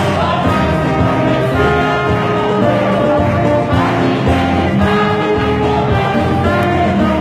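Church choir singing a hymn, accompanied by an electronic keyboard and a trumpet playing held notes.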